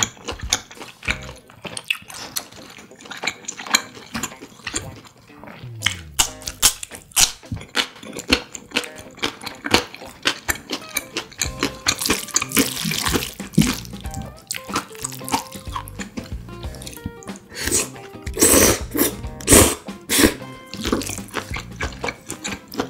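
Close-up wet chewing and mouth clicks, then chopsticks stirring sauce-coated jjapaguri noodles with a squelching sound about halfway through. Louder wet noodle sounds come near the end as noodles are lifted to the mouth.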